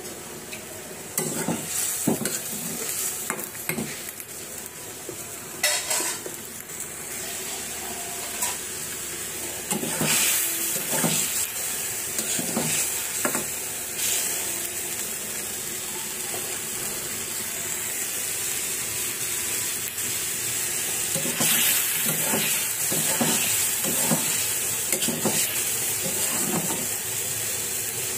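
Egg curry sizzling in a black iron karahi while a metal spatula stirs and scrapes the pan in several bouts of clinks and scrapes over a steady sizzle.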